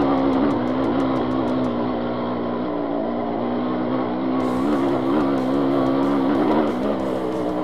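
Dirt bike engine running under load, its pitch wavering up and down with the throttle.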